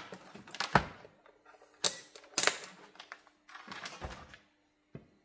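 Irregular sharp clicks and knocks, about six in all, as multimeter test leads and parts are handled and set down on a workbench.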